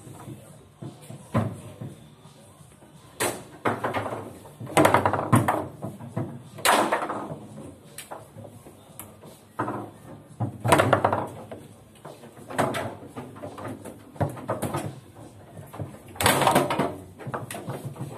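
Foosball table in play: the ball is struck by the plastic figures and knocks against the table walls, and the rods clack. The knocks and clatters come at irregular intervals, some in quick runs, the loudest about five, seven, eleven and sixteen seconds in.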